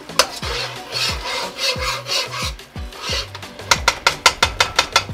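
Instrumental backing beat: deep kick drums that drop in pitch repeat under a low bassline, with a rasping, scraper-like percussion. About two-thirds of the way in, a quick run of sharp clicks takes over.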